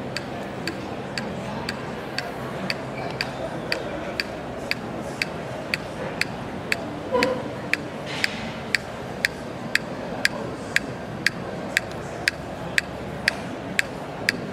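A sharp, dry click repeating evenly about twice a second, over the murmur of voices.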